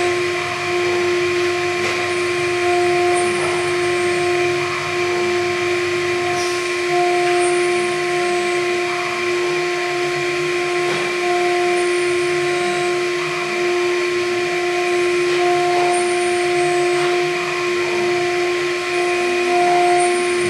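MillStep PAX6050V2 CNC milling machine's spindle whining steadily as its end mill cuts slots into a plastic plate, over a steady hiss. A second, higher tone comes and goes every few seconds.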